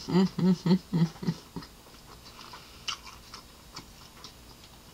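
A quick run of about five short, steady-pitched hums, 'mm-mm-mm', from someone eating with her mouth closed, in the first second and a half. A few faint clicks follow.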